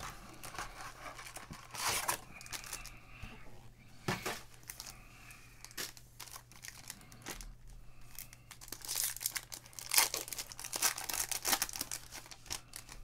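Baseball card packs being torn open by hand: foil wrappers ripping and crinkling in irregular crackly rustles. The rustling is louder about two seconds in, briefly around four seconds, and again from about nine to twelve seconds.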